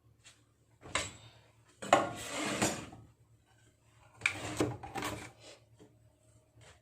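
Kitchen prep handling sounds: a knock about a second in, then two stretches of clatter and scraping of utensils and food against a countertop or cutting board.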